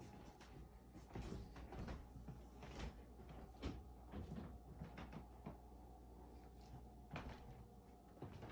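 Faint, irregular knocks and thuds from a person moving through a room with a handheld phone, over a low steady hum.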